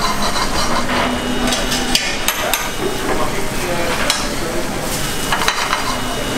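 A slice of swede sizzling as it pan-fries in oil and butter in a stainless steel frying pan, with a few sharp knocks and clinks of a spoon against the pan.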